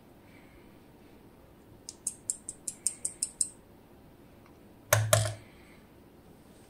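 Small metal parts of a DOM IX Twido lock cylinder being handled during disassembly: a quick run of about eight light, high clicks, then one louder knock with a short clatter about five seconds in.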